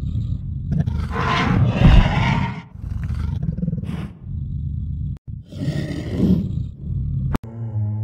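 Ankylosaurus roar sound effect from Google's 3D AR dinosaur model: several gravelly roars in a row. Near the end a sharp click is followed by a deeper, steady pitched call from a long-necked sauropod model.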